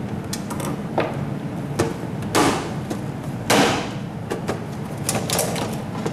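Plastic rice cooker handled on a wooden workbench: scattered clicks and knocks, two louder scrapes as it is tipped onto its side, then clicking of the plastic bottom cover as it is pried off.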